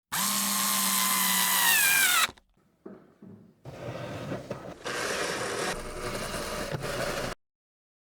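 Power drill running for about two seconds, its whine dropping in pitch as the motor stops. After a short pause with a few faint clicks, a quieter stretch of rattling tool noise runs for about four seconds and cuts off suddenly.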